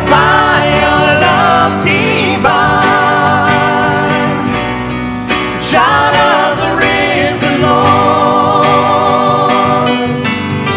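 A worship team of several voices singing a contemporary worship song together. They are backed by strummed acoustic guitar and keyboard, with long held notes sung with vibrato.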